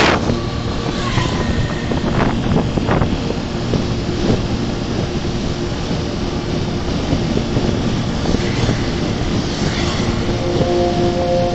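Motorcycle riding at steady road speed: engine and road noise under heavy wind rush on the microphone, with a few short knocks in the first few seconds.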